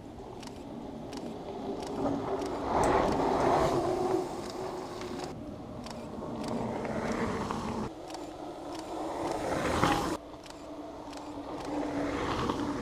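Mountain bikes descending a dirt and gravel track, their tyres rolling and crunching on the loose surface. The sound swells as each rider comes near and cuts off suddenly a few times.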